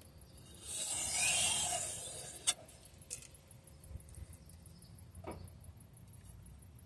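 One edge-leading stroke of a knife blade across the sharpening stone of a guided sharpener, a scraping hiss lasting about a second and a half, to take the burr off the edge. A sharp click follows, then a few light taps.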